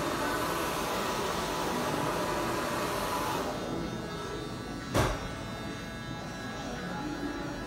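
Electric hair clippers buzzing during a haircut, the buzz dropping off after about three and a half seconds. A single sharp click about five seconds in.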